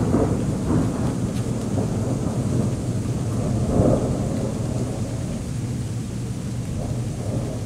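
Long low rumble of thunder rolling on and slowly fading, with a slight swell about four seconds in.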